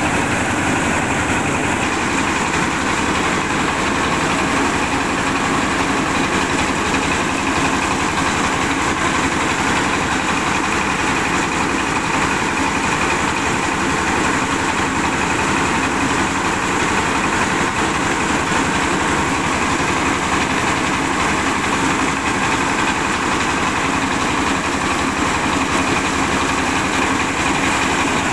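Mobile rice mill running steadily under power, its engine driving the milling machinery while grain streams through and out of the chute.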